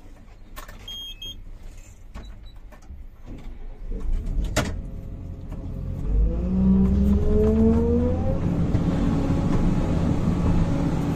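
Sumitomo 490 excavator heard from inside the cab: the diesel engine near idle at first, with a single click, then revving up about six seconds in with a rising hydraulic whine as the machine works, running loud and steady after that.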